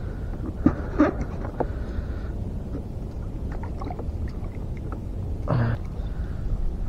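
Steady wind and water noise around a small open boat, with a few light clicks and knocks about a second in from handling a hooked fish and lure with pliers. A brief voice-like grunt near the end.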